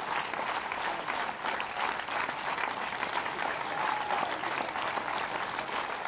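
Large audience applauding, a steady dense clapping of many hands.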